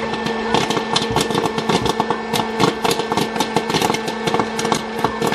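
Presto PopLite hot-air popcorn popper running: its fan motor hums steadily while kernels pop in rapid, irregular clicks and popped corn is blown out of the chute into a stainless steel bowl.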